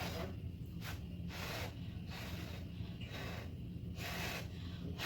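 Short puffs of breath repeating about once a second: blowing on a hot microwaved pickle to cool it. A steady low hum runs beneath.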